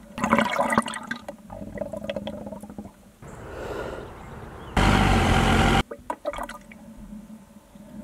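Water splashing and gurgling in a run of short takes. About five seconds in there is a loud rushing burst lasting about a second, which starts and cuts off sharply.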